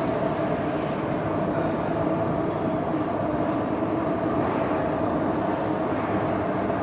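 Diesel generator set running steadily at constant speed, a continuous engine drone with a steady low hum.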